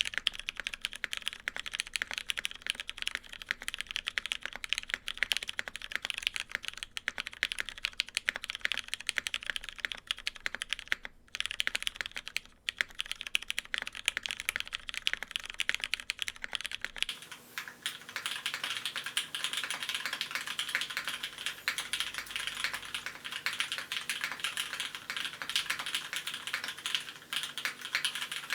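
Continuous fast typing on a gasket-mounted, aluminium-plate mechanical keyboard with lubed, filmed Cherry Hyperglide MX Brown tactile switches on 62 g springs and GMK keycaps: a dense, steady stream of key clacks with a couple of short pauses, turning somewhat brighter about two-thirds of the way through.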